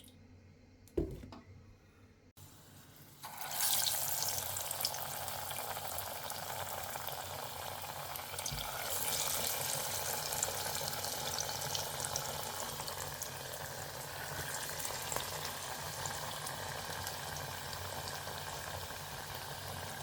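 Lentil vadai (chana dal fritters) deep-frying in hot oil: a steady sizzling that starts about three seconds in, after a short knock about a second in.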